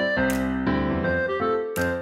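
Background music: a light keyboard tune with notes struck in an even rhythm, a few a second, and a bright high accent twice.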